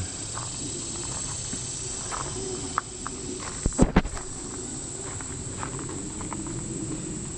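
Steady high-pitched chirring of insects, likely crickets, with a few short knocks about four seconds in.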